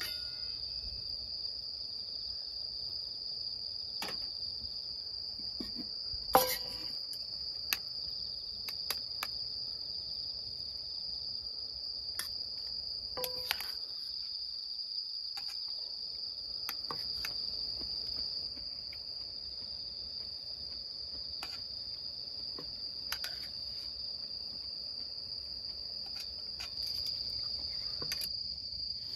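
Steady high-pitched trill of insects, with a few scattered light knocks and clicks, the sharpest about six seconds in and another near thirteen seconds.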